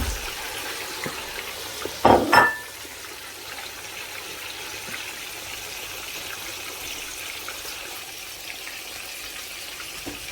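Steady sizzle of food frying in the cooking pot, with a loud, brief metallic clatter about two seconds in.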